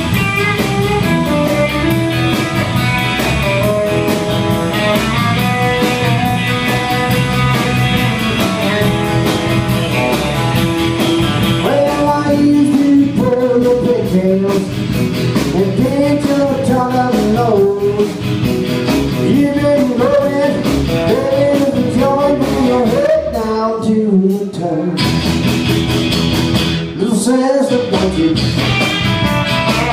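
Live rock and roll band playing: guitars, bass and drums with a steady beat. The first stretch is instrumental, and a male voice starts singing about twelve seconds in.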